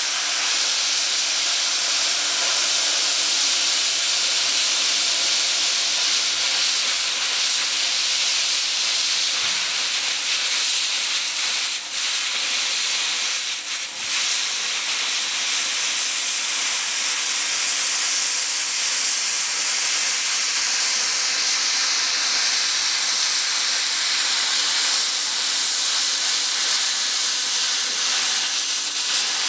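Plasma cutter cutting through stainless steel sheet: a loud, steady hiss of the air and arc, dipping briefly twice near the middle.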